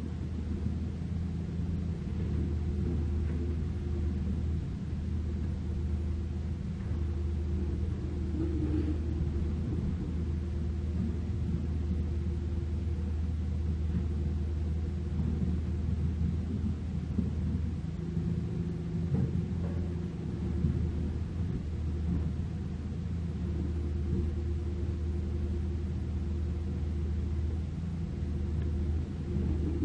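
Diesel engine of a Kobelco crawler excavator running under working load as it digs rubble and swings to a dump truck, a steady low drone that dips and comes back a few times, with a few faint knocks of rock.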